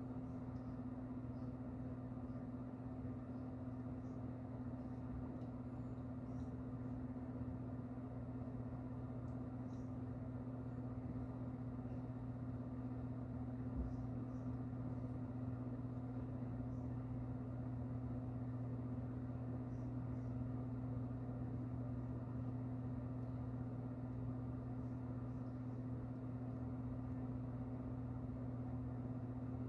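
Steady low hum over faint room noise, with one soft knock about halfway through.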